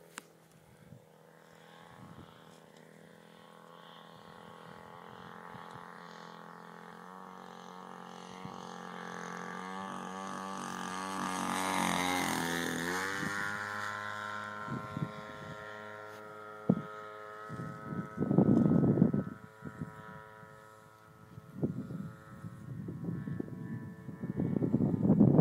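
Engine of a radio-controlled P-51 Mustang model flying past. It grows louder to a peak about halfway through, drops in pitch as it passes, then fades away. Near the end, gusts of wind rumble on the microphone.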